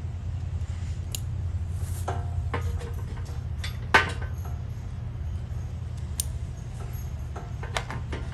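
Plastic MC4 solar cable connectors being handled and clicked together, with scattered small clicks and one sharp click about four seconds in, over a steady low rumble.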